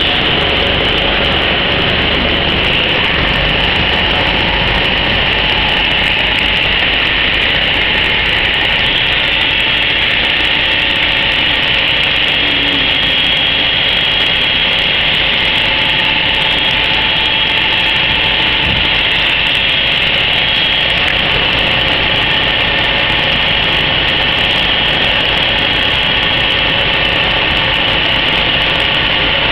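YS-F foam vacuum compressor machine running, its vacuum pump making a steady, loud, even machine noise with a high whine over it.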